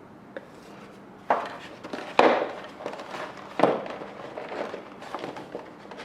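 Parts and packaging of a model plane kit being handled on a table: a few sharp knocks, the loudest a little over two seconds in, with rustling and handling noise between.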